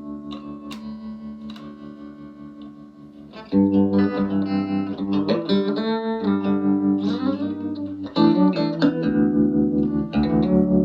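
Electric guitar played through a Davoli D531T valve amplifier: a fading chord, then new strummed chords about three and a half, eight and ten seconds in, with bent notes between them. The level pulses about five times a second from the amp's tremolo.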